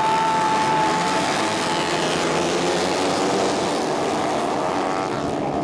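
A pack of 110cc racing motorcycles accelerating hard off the start line together, many engines revving high at once with their pitches overlapping and sliding.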